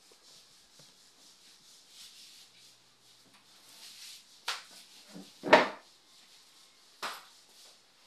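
Four sharp knocks and clunks of a metal door latch being handled against the edge of a wooden door, the loudest about five and a half seconds in.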